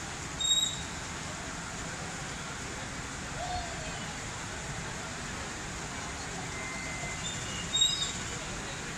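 Steady outdoor background noise with no clear single source. A short, sharp, high-pitched whistle comes about half a second in, and a few more short high whistles or chirps come near the end.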